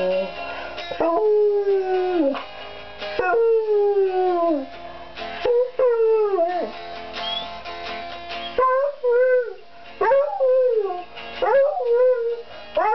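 Beagle howling along to an electric guitar: three long howls that fall in pitch, then from about eight and a half seconds in a run of shorter howls that rise and waver. Held guitar chords ring underneath.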